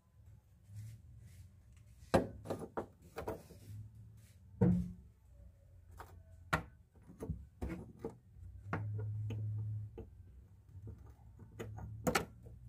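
Irregular clinks and knocks of rusted metal parts, a corroded car body-mount bolt with its rubber bushing and washers, being handled and set down on the car's steel floor pan. A low hum lasts about a second partway through.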